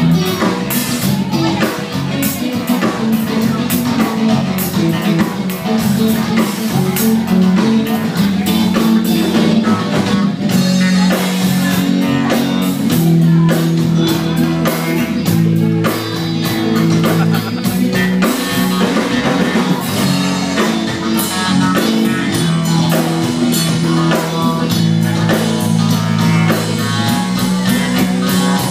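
Rock music with guitar, drums and a bass line that moves between held notes, playing loudly throughout.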